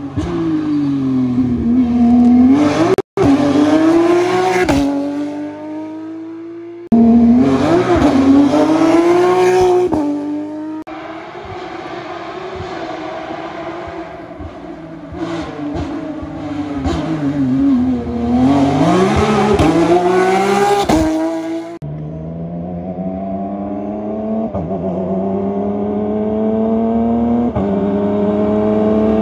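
Rally car engines passing one after another, each note dropping as the car slows and then climbing hard as it accelerates. Near the end one engine climbs steadily through its gears, its pitch stepping down at each upshift.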